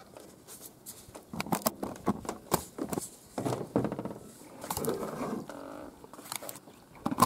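Plastic rain-gutter downpipe and elbow being handled and pushed together, giving a string of light clicks and taps.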